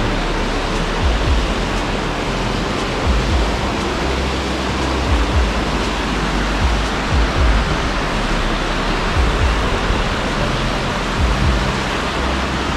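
Steady rushing noise of a waterfall, with wind buffeting the microphone in short low thumps.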